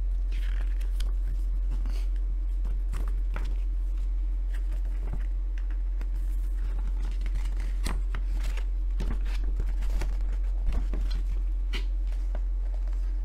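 Paper rustling and crinkling as a folded paper poster is unfolded and handled, in scattered short crackles and scrapes, over a steady low electrical hum.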